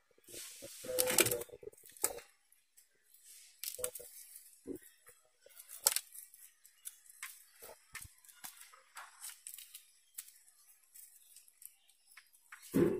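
Thin clear plastic grafting tape crinkling and crackling as it is stretched and wound around a fresh bud graft on a bonsai stock, in irregular small clicks and rustles. There is a louder rustle about a second in and a short bump near the end.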